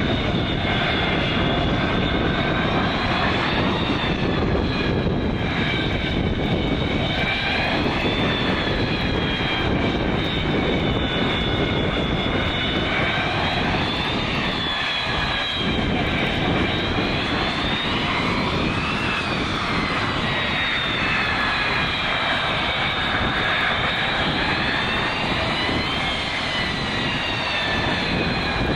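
Boeing 727-200's three Pratt & Whitney JT8D turbofans running at taxi power: a steady jet rumble under a high whine that slowly wavers up and down in pitch every few seconds.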